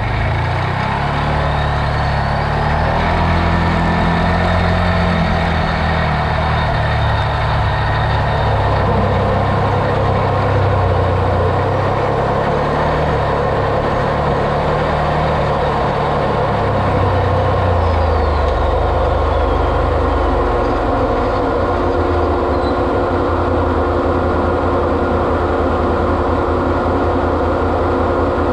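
Off-road vehicle's engine running while driving, its pitch rising and falling with the throttle for most of the first twenty seconds, then settling steadier near the end.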